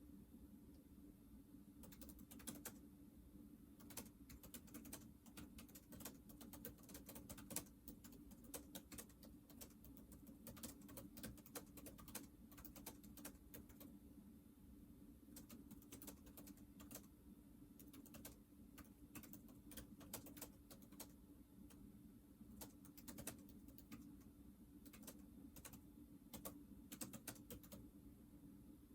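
Faint typing on a computer keyboard: irregular runs of keystroke clicks with short pauses, starting about two seconds in, over a low steady hum.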